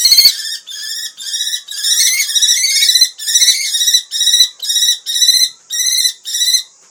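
Common kestrel calling over and over, about two short calls a second, which stop near the end.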